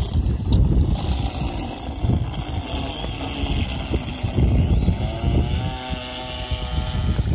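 Homemade RC boat with a propeller cut from an old CPU fan, its motor whining steadily as it runs on the water, starting about a second in. Wind buffets the microphone with a low rumble throughout.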